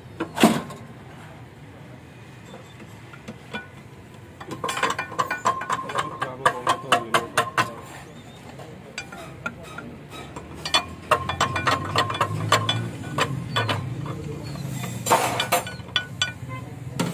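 Hand tools and small metal parts clicking and clinking on a tractor diesel engine's exposed cylinder head, in quick runs of clicks with a sharp knock about half a second in.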